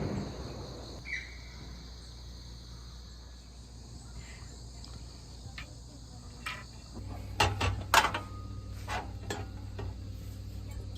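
Insects, crickets by their sound, chirping steadily in a high pitch. From about two-thirds of the way through, several sharp clicks and knocks of something being handled cut in; the loudest comes near the end of that run.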